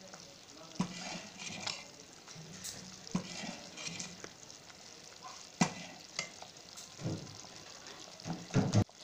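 A spoon stirring thick, boiling kadhi (gram-flour and yogurt curry) in a steel pot, scraping through the curry with a low bubbling, and knocking sharply against the pot a few times, loudest about halfway through and near the end.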